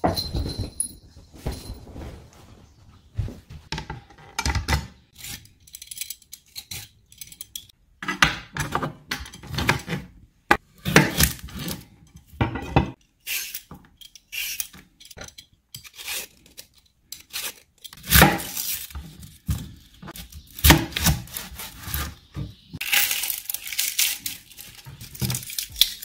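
A vegetable peeler scraping strips off a cucumber in quick, irregular strokes, with knocks and rubbing on a plastic cutting board. A burst of rustling comes near the end.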